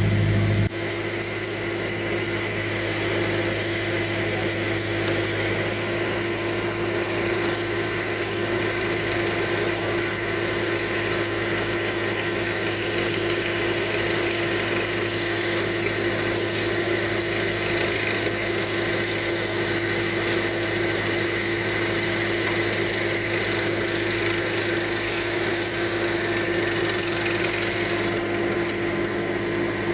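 Heavy-equipment engine running steadily at a constant note. About a second in, a deeper low hum drops away.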